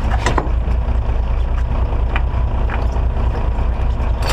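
Charter fishing boat's engine running steadily with a deep drone, under a rushing noise of wind and water along the hull as the boat moves through chop. A few short sharp clicks or knocks, the strongest just after the start.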